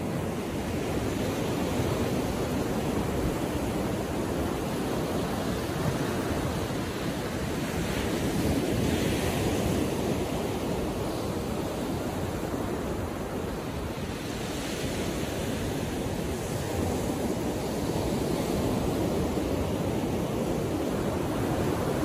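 Gentle Atlantic surf: small waves breaking and washing up a sandy beach, a continuous rushing noise that swells a few times as waves break.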